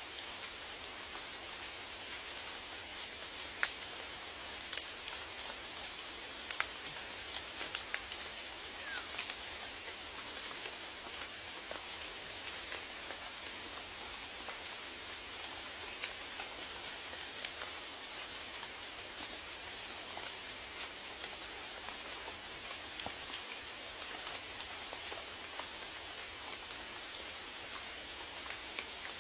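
Steady rain: an even hiss of rainfall with scattered single drops ticking sharply on a nearby surface.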